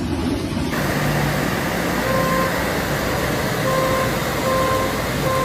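Street traffic noise with a car horn honking four short times in the second half.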